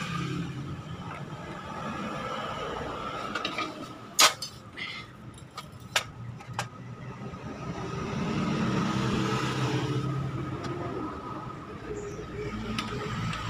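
Workshop background with a motor vehicle running nearby, swelling louder about two-thirds of the way through and fading again. A few sharp clicks of small metal engine parts being handled, the loudest about four seconds in.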